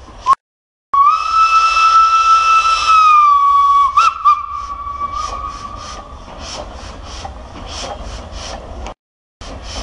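Steam locomotive whistle blowing one long blast of about three seconds, its pitch sagging slightly at the end, then a short toot. After that the locomotive's exhaust chuffs about twice a second, with steam hissing.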